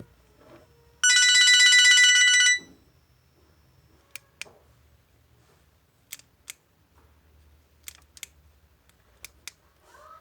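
LG MG160a mobile phone's alarm tone: one loud, buzzy, high-pitched electronic burst lasting about a second and a half, starting about a second in. Afterwards come four pairs of short sharp clicks.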